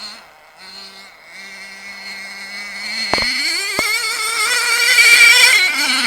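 Small pull-started nitro engine of a radio-controlled car running while it warms up. It holds a low, steady pitch, then is revved about three seconds in and held high, with a couple of sharp clicks.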